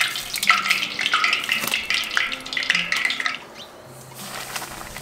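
Hot oil in a cast iron pot sizzling and crackling from deep-frying a dough turnover, dying down to a quieter sizzle about three and a half seconds in.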